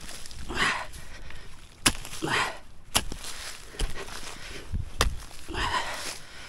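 Pickaxe striking into the ground: several sharp hits about a second apart, with scraping and rustling of loose soil between the strikes.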